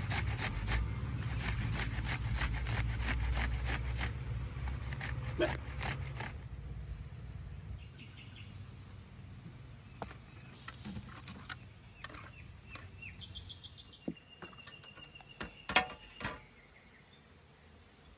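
Onion being grated on a metal box grater, fast rasping strokes for the first few seconds. After that it goes quieter, with birds chirping and a few light clicks and taps near the end.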